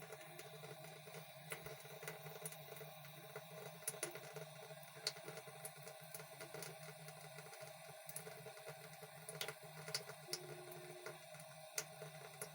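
Water from a tap running faintly into a sink, with irregular small ticks and splashes over a steady low hum.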